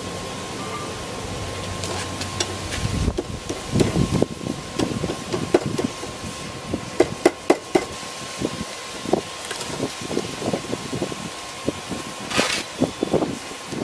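Hand hammer striking a glowing steel rod on a steel anvil, drawing the hot end out into a thin hook. The blows are irregular, two or three a second, and start about three seconds in, after a steady hum.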